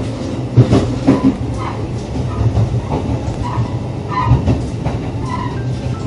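Low, steady rumble of a 183-series diesel railcar heard from inside its vestibule, with a few sharp knocks, the loudest about half a second in and another a little after four seconds.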